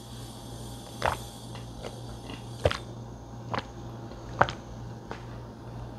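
A woman drinking water from a plastic bottle, with four or five short gulping swallows about a second apart.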